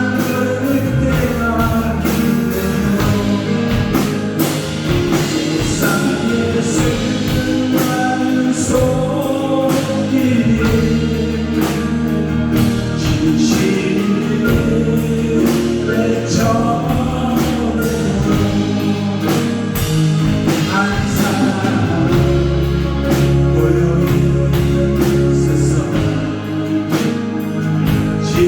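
Live contemporary worship music: a praise team singing a Korean praise song with a full band of drums, bass, keyboard and guitar, the drums keeping a steady beat.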